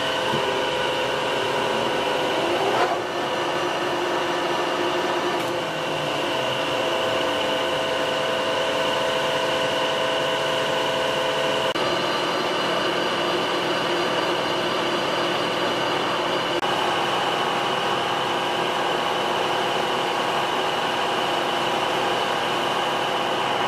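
Colchester Triumph 2000 centre lathe running: a steady mechanical hum with whining tones from the headstock gearing, the mix of tones changing a few times. A brief knock about three seconds in.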